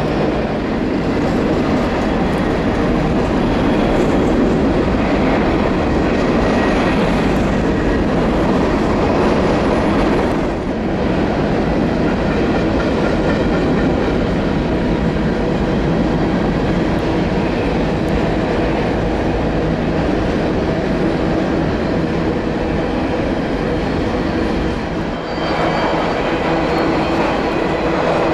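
Freight train cars rolling past, with continuous wheel-on-rail clatter.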